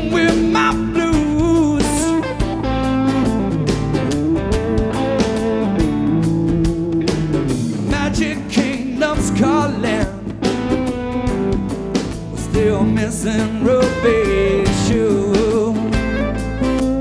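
Live band playing a song: singing over acoustic guitar, electric guitar and drum kit.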